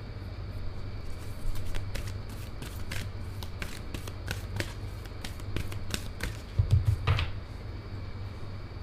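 A deck of angel oracle cards being shuffled by hand, with scattered light card snaps and a louder flurry with a thump about seven seconds in.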